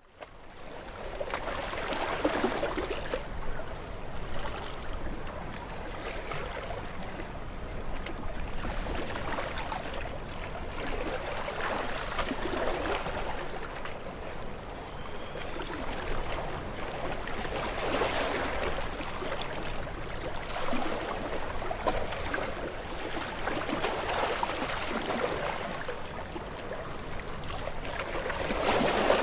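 Ocean waves breaking on rocks: a steady wash of surf that swells into a louder surge every few seconds and falls back again.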